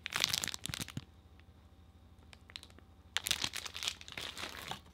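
Plastic packaging crinkling as it is handled, in two stretches: one in the first second and another from about three seconds in, with a quieter gap between them that holds a few faint ticks.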